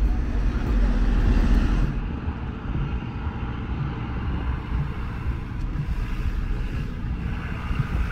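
Outdoor street ambience dominated by a low rumble, louder in the first two seconds and again near the end.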